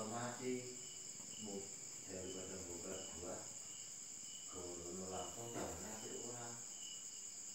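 Crickets chirping: a steady high ringing with short chirps repeating about every half second. A low, indistinct voice is heard now and then beneath it.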